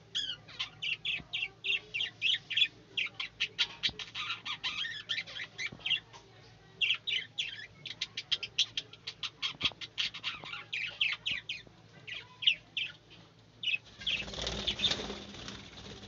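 Budgerigars chirping in a quick run of short, high chirps, several a second, with brief gaps. About fourteen seconds in, a flurry of wing flapping starts as a budgie takes flight, and the chatter carries on faintly beneath it.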